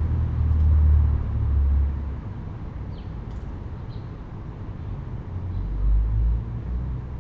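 A low rumble, loudest for the first two seconds and swelling again briefly near the end, with a few faint high clicks in between.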